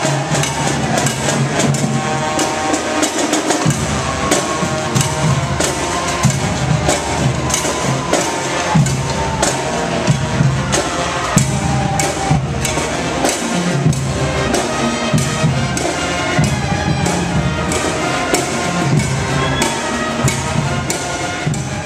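Music with a steady drum-kit beat of bass drum and snare; a deeper bass line comes in about four seconds in.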